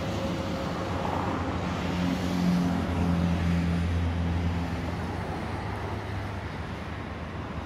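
Road traffic going by, with a vehicle engine's low hum that swells about two seconds in and fades away over the next few seconds.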